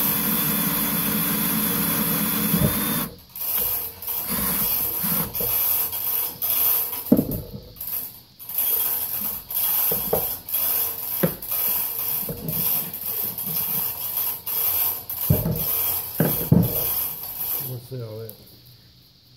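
Electric drill turning a reamer in the valve guide bore of a John Deere 3 HP hit-and-miss engine's cast-iron head, running steadily and stopping about three seconds in. Then irregular metal clinks and rattles as the reaming tools and the head are handled on the bench.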